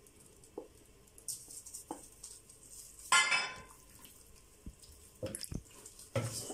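Cooked fusilli being scraped off a plate with a silicone spatula into a steel pot of thick béchamel sauce and stirred in: soft wet stirring with scattered clicks and knocks of the spatula and plate against the pot, the loudest a scrape about three seconds in.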